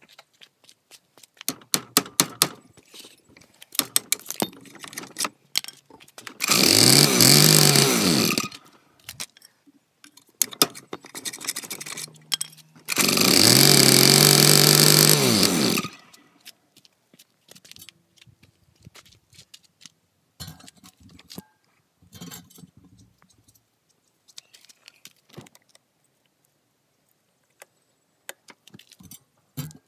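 A small motor run twice, about 2 seconds and then about 3 seconds, spinning up and winding down each time, among clicks and rattles of things being handled.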